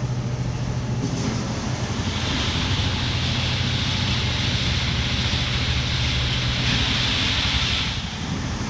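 A steady low engine hum under a wash of wind and water noise; a hiss grows louder about two seconds in and fades near the end.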